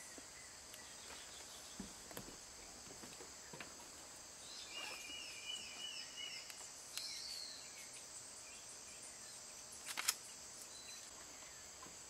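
Rainforest ambience: a steady, high-pitched insect chorus, with a brief chirping call in the middle and a few sharp clicks, the loudest about ten seconds in.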